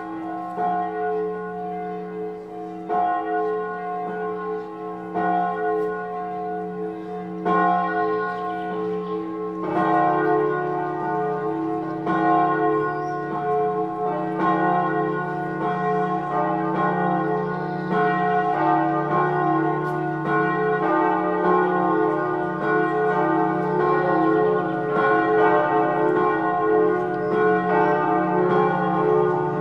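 Swinging church bells ringing in one by one. The 13th-century Frauenglocke (F♯) rings alone, with a stroke about every two seconds. About ten seconds in, the Friedensglocke (D♯, cast by Perner in 2011) joins it, and near the end the Lutherglocke (C♯, Perner 2011) comes in as a third bell.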